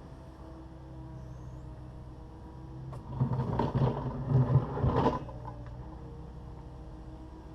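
Takeuchi TB260 excavator's diesel engine running steadily. About three seconds in comes a louder stretch of about two seconds of scraping and knocking as the machine works the concrete, then the engine hum carries on.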